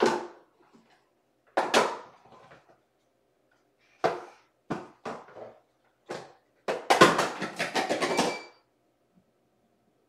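Hard plastic toy being batted and pushed about by a cat: single knocks and clatters every second or two, then a rapid rattle of clicks for about two seconds near the end.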